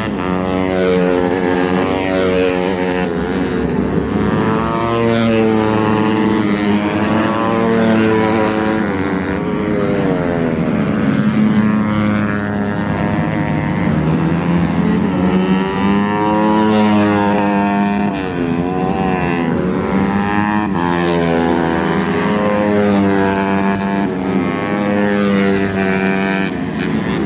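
Racing motorcycle engines revving hard as bikes pass through a corner, several at once, the pitch climbing and dropping again and again as riders shift and brake.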